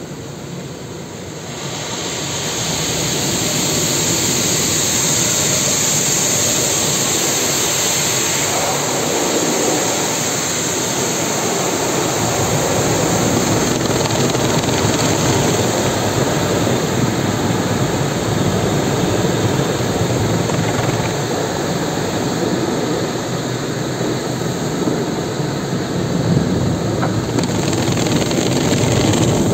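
Automatic car wash heard from inside the car: water jets spraying and pelting the windshield and body as a steady, loud rushing hiss over a low rumble. It swells about two seconds in, and the high hiss eases near the end.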